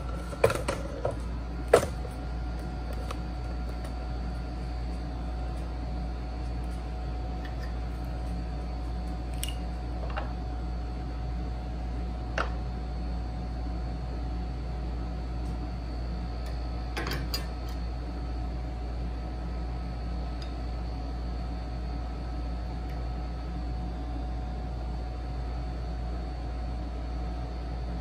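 Steady room hum with a faint fan-like drone and a few steady tones, broken by scattered light knocks and clicks. There are several in the first two seconds, the loudest just under two seconds in, then single ones about ten and twelve seconds in and a close pair about seventeen seconds in. The knocks fit hand tools or the workpiece being handled on a woodworking bench.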